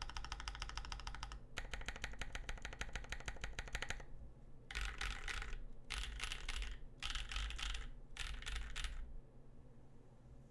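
Typing on a CannonKeys Savage65 mechanical keyboard with lubed Gazzew Boba U4T tactile switches, GMK keycaps and an FR4 plate. Two long runs of fast, rapid-fire keystrokes, then four short bursts of typing that stop about nine seconds in.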